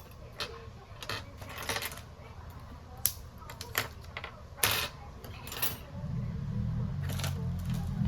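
Scattered light clicks and taps of small tools and parts being handled on a workbench. About six seconds in, a low hum sets in and grows louder.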